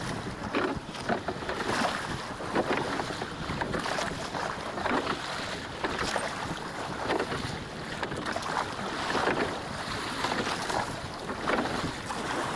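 Water splashing and rushing along the hull of a small open boat under way, with wind buffeting the microphone in uneven gusts about once a second.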